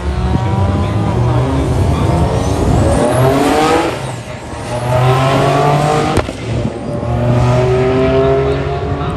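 Turbocharged Ecotec V6 accelerating hard through the gears on a drag pass. The revs climb steadily, with a high whine rising alongside, and drop at gear changes about four and six seconds in, the second with a sharp click.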